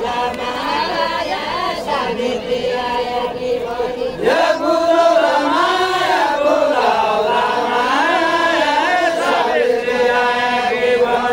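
A group of voices singing a Nepali deuda folk song together without instruments, a chant-like melody of long held notes. About four seconds in, a voice swoops up into a new line and the singing grows louder.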